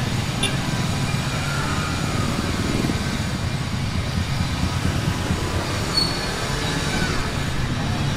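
Street traffic: a steady low rumble of vehicle engines, with a brief high squeak about six seconds in.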